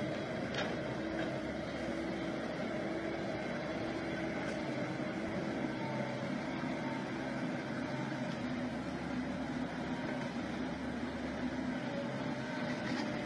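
Tracked excavator's diesel engine running steadily, heard faintly under a wash of outdoor noise.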